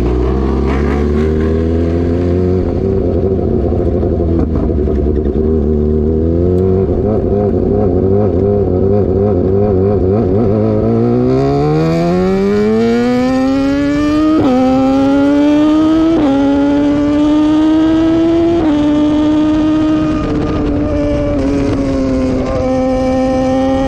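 BMW S1000R sport motorcycle's inline-four engine, heard from the rider's own bike. It runs at low revs for about ten seconds, then accelerates hard, its pitch climbing steadily, and holds a high, steady note with a few brief sudden jumps, while wind noise rises with the speed.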